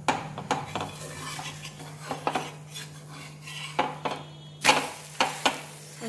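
Steel spatula scraping and clinking against a flat metal tava as a gram-flour dhirde is loosened and flipped, with a run of sharp metallic knocks, the loudest a little after four and a half seconds. A steady low hum runs underneath.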